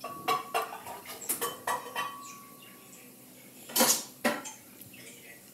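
Kitchen dishes and utensils clattering: a string of clinks and knocks, one leaving a ringing tone for about a second and a half, and a louder clatter just before four seconds in.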